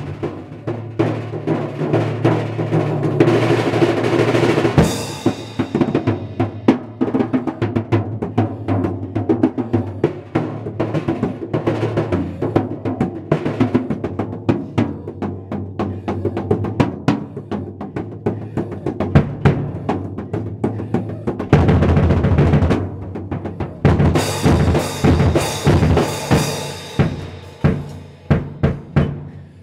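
Drum kit played hard with bare hands: fast slaps and rolls on the toms and snare over the bass drum. Cymbals wash in twice, a few seconds in and again about three-quarters through, just after a short low rumbling roll.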